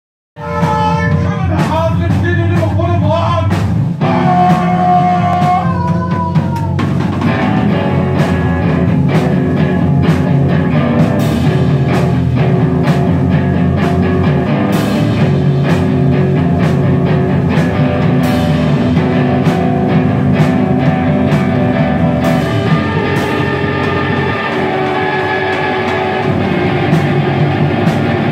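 A rock trio playing live: electric guitar, electric bass and drum kit. The music starts abruptly a fraction of a second in, with bending guitar notes over the first few seconds and repeated drum hits.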